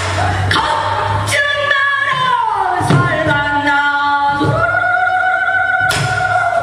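Female pansori singer singing solo, her voice sliding down in pitch about a second and a half in, then rising to a note held steady for over a second before breaking off near the end.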